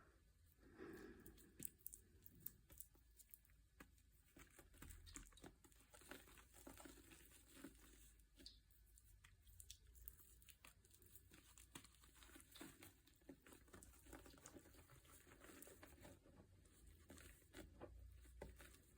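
Faint crinkling and rustling with many small clicks and crackles.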